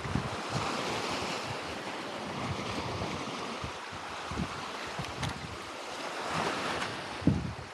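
Sea waves washing and surging against shore rocks, swelling and easing, with wind buffeting the microphone in low thumps.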